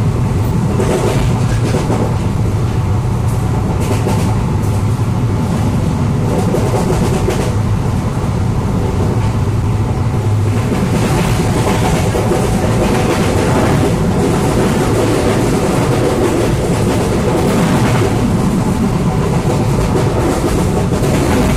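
Train running at speed, heard from inside the coach: a steady rumble and rush of rail and wind noise with scattered clicks from the wheels on the track.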